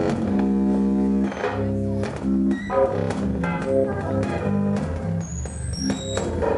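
Modular synthesizer playing live electronic music: shifting chords of pitched tones that change every fraction of a second over a steady low drone, with short high beeps near the end.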